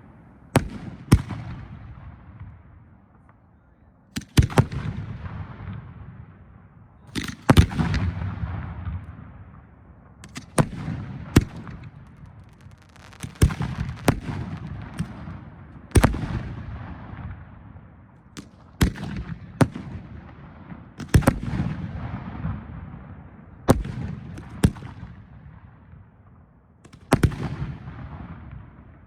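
Display firework shells bursting in the air: sharp, loud bangs every two to three seconds, often two in quick succession, each rolling off into a low rumbling echo.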